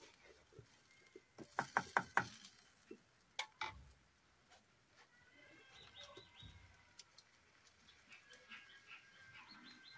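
A wooden spatula knocking a few times against a steel kadai, a quick cluster about one and a half to two seconds in and two more knocks a little later. Faint high chirping and thin whistling tones follow in the second half.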